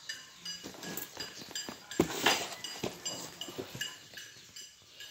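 A cardboard parcel is handled and turned over, with knocks and a louder scrape about two seconds in. Under it, a steady series of short high chirps repeats two to three times a second.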